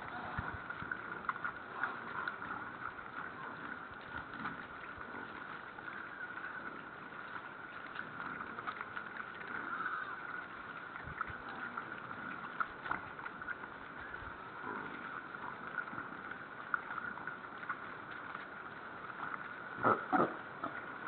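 A herd of wild boar feeding on grain scattered over snow: many small crunches and snuffles over a steady hum, with two louder short sounds near the end.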